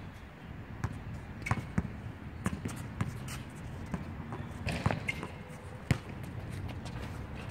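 Basketball being dribbled on an outdoor hard court: a string of irregular bounces, the hardest about six seconds in, with sneakers shuffling on the court surface.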